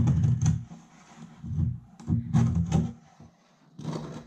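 Knife scraping around the inside edge of a metal cake pan to loosen a baked cake from its sides. It comes in short spells of rapid scraping and knocking, with a brief pause after about three seconds.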